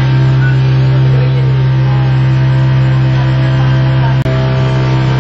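Motorboat engine running at a steady pace, a loud low drone with a constant hum. A single sharp click about four seconds in.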